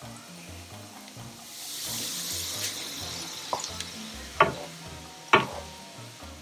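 Diced onion sizzling in butter in a frying pan, the sizzle swelling about a second and a half in as honey goes in, then three sharp knocks of the spoon against the pan as it is stirred. Background music with a low bass line plays under it.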